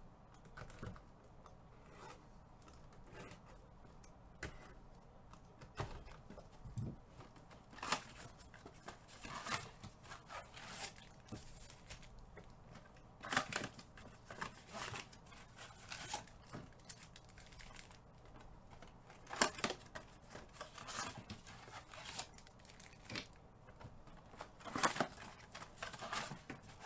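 Trading-card pack wrappers being torn and crinkled while cards are handled: scattered, irregular crackles and rips every second or two.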